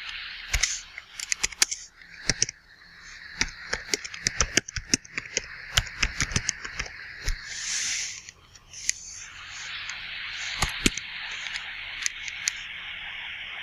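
Computer keyboard being typed on: irregular key clicks, in quick runs with short pauses, over a steady background hiss.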